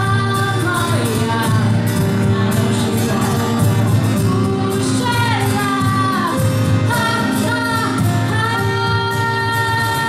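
A small live band playing a pop-rock song, a girl singing over acoustic guitar and violin, in a large hall.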